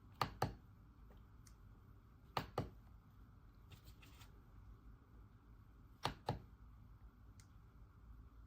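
Keys of an RK Royal Kludge S98 mechanical keyboard pressed singly three times, each stroke heard as a pair of sharp clacks on the way down and on release, with a few fainter taps between.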